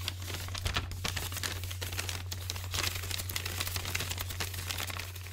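Sound-effect bed for an animated intro: dense, irregular crackling and clicking over a steady low hum, easing off near the end.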